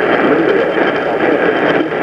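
Loud, steady radio static from a weak broadcast signal on a radio receiver, with no clear words coming through.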